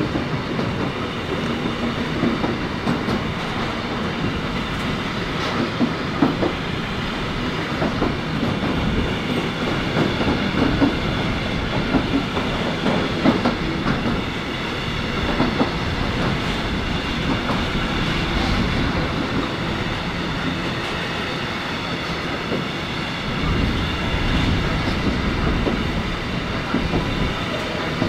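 Intermodal freight train of container and tank-container flat wagons rolling steadily past: a continuous rumble of steel wheels on rail, broken by frequent irregular clicks and clacks from the passing wheelsets.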